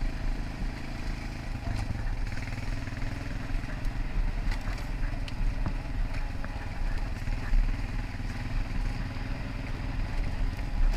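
ATV engine running steadily at low speed on a rough dirt trail, with a few light knocks and rattles from the machine over bumps.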